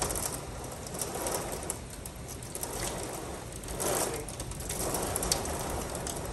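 Rain falling steadily, a continuous hiss that swells and eases every second or so.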